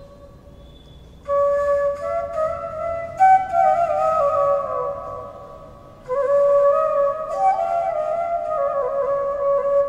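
Bamboo transverse flute (bansuri) playing a melody: after a brief pause, a phrase of gliding, ornamented notes about a second in, then a second phrase opening on a held low note about six seconds in.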